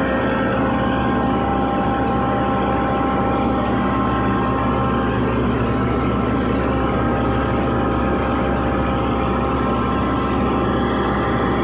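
Belt-driven 37 kW industrial air compressor running steadily on test: a continuous machine hum with several constant tones. A higher tone near the start fades out within the first second.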